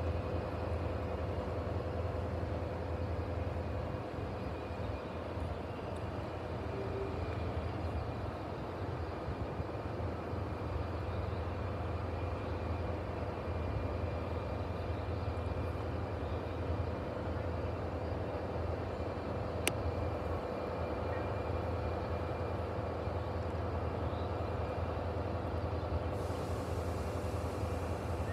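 Diesel locomotive of an Amtrak passenger train standing at the platform, its engine running steadily at idle: a low rumble with a steady hum over it. A single sharp click about two-thirds of the way through, and a high hiss comes in suddenly near the end.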